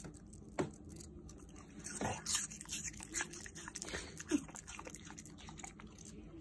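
A Shiba Inu biting and chewing a piece of raw apple: a run of crisp, wet crunches, thickest and loudest about two seconds in, with a last sharp crunch past the four-second mark.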